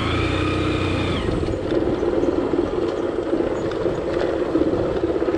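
Motorcycle engine running steadily as the bike is ridden, with a high steady tone over it for about the first second.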